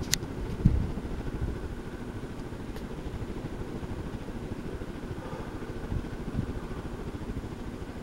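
Harbor Breeze Crosswinds ceiling fan running at speed: a steady low motor hum and rush of the blades, with a sharp click just after the start and a few low thumps, the loudest about a second in.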